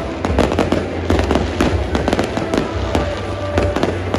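Fireworks barrage: a rapid, dense string of sharp bangs and crackles from aerial shells and firecrackers bursting in quick succession.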